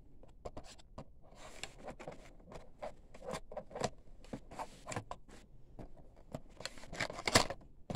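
Cardboard retail box being opened and handled by hand: irregular scraping, rustling and small clicks of the cardboard flap and packaging, with a louder scrape near the end.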